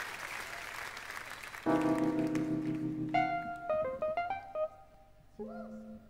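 Crowd noise, then about two seconds in a keyboard plays a sustained chord followed by a few single notes, opening a slow instrumental intro.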